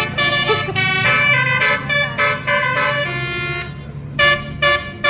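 Bus 'telolet' horn, a multi-tone musical air horn, played as a run of short blasts at changing pitches like a little tune. After a brief pause near the end it gives three quick toots.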